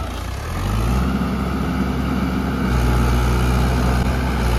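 Diesel engine of a Swaraj 843 tractor revving up about half a second in, then running hard and steady, getting louder again near the middle. It is straining to pull the tractor out of mud.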